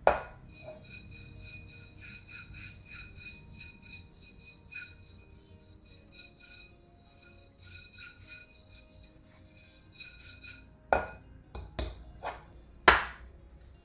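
Light background music with a quick, ticking rhythm of short notes. Over it, a frying pan is knocked and set down against a table: once at the start and several times near the end, the last knock the loudest.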